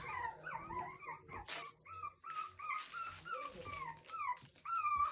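Young puppies whimpering and squeaking: a run of short, high cries that rise and fall, a couple of times a second.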